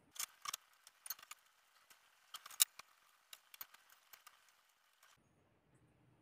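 Small metallic clicks and light rattles from a cable-operated bicycle disc-brake caliper and its brake cable being handled and worked loose. There are a dozen or so sharp ticks at uneven intervals, the loudest about two and a half seconds in, and they stop about five seconds in.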